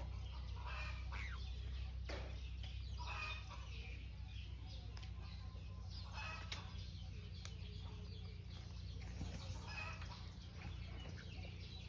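Chickens clucking faintly now and then over a low steady hum.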